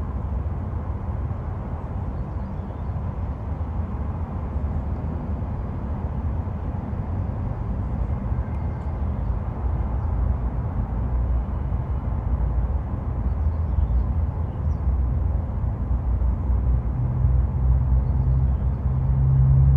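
Road traffic noise: a steady low rumble of passing vehicles that grows louder toward the end, with a low engine drone coming in near the end.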